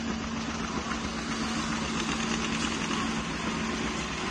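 Vintage tractor engines idling, with a steady hum throughout.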